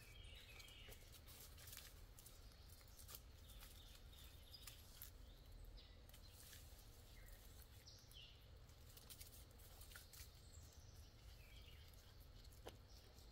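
Near silence: faint woodland ambience with scattered small clicks and scrapes as a climbing tether is slid up a tree trunk, and a few faint bird chirps.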